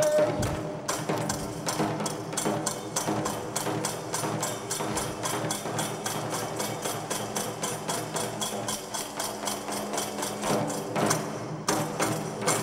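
Nanbu kagura percussion accompaniment: rapid, even strikes, about four a second, over steady held tones. The strikes break off briefly near the end.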